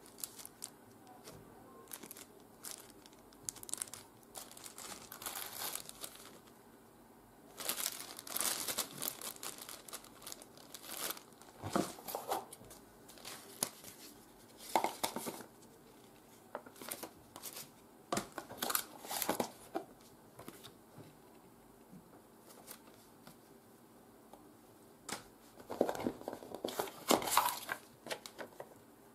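Packaging being handled: plastic wrap crinkling and paper and card rustling as a booklet and leaflets are handled, in irregular bursts with quiet gaps between, the busiest stretches about a third of the way in and near the end.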